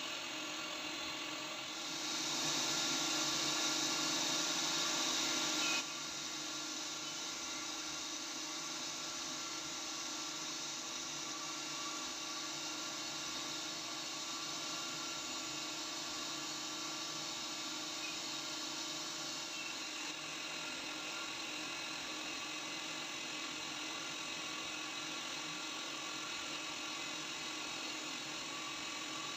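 Bridgeport CNC vertical machining center running, its spindle giving a steady high whine over a mix of machine tones. From about two seconds in, a louder hiss joins the whine for roughly four seconds and then stops abruptly.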